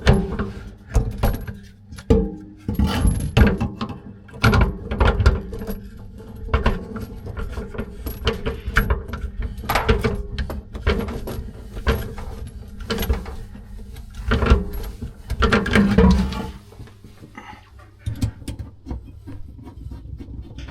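Irregular clanks, clicks and rattles of hand tools and plumbing parts being handled and worked under a sink, with rubbing and scraping in between. The knocking thins out and gets quieter near the end.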